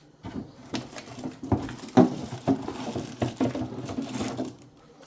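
Hard plastic humidifier parts being handled and unpacked: a run of knocks, clatter and rustling, loudest about two seconds in, dying down near the end.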